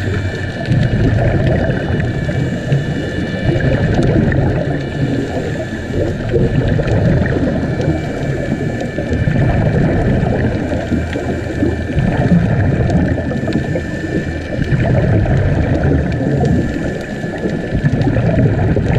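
Scuba breathing heard underwater through a camera housing: a low bubbling rumble of regulator exhaust bubbles that swells and fades about every two to three seconds, over several faint steady high tones.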